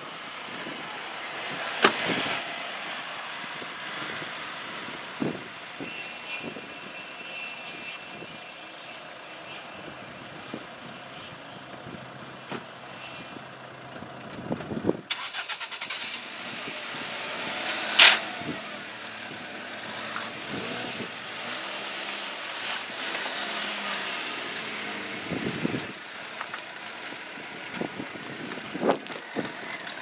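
Distant Boeing 757 jet engines running as the airliner moves along the runway, a steady engine whine for a while and then a broader rushing noise. Several sharp thumps, the loudest about 2 and 18 seconds in.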